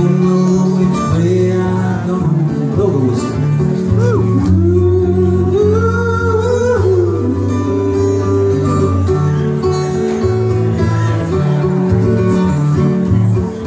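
Live country-bluegrass music: an acoustic guitar strums a steady rhythm while a melody line slides up and down in pitch over it around the middle.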